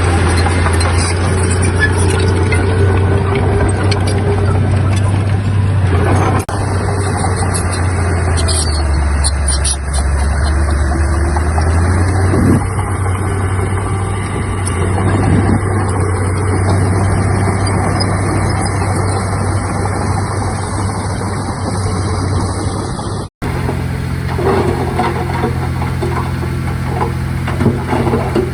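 Heavy earthmoving machinery's diesel engines running steadily, with a brief lower engine note about nine to twelve seconds in. The sound breaks off abruptly twice, after about six seconds and again near the end, and picks up again each time.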